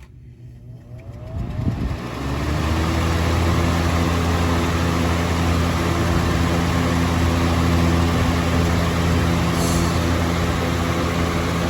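A 1999–2000 Holmes HABF-25 20-inch box fan started on high: the motor spins up with a rising whine over the first two seconds or so, then runs steadily with a low hum and the rush of air from the blades.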